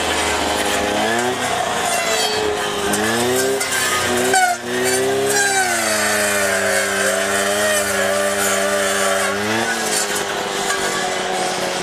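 Strimmer engine running and cutting, its pitch rising and falling as the throttle is worked. There is a brief dip about four and a half seconds in, then a few seconds held steady before the revs drop again near the end.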